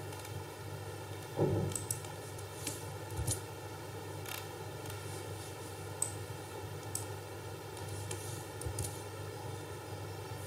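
Steady low hum and hiss of the recording room, with a few scattered clicks from a computer mouse and keyboard as text is selected and pasted, and one louder dull thump about a second and a half in.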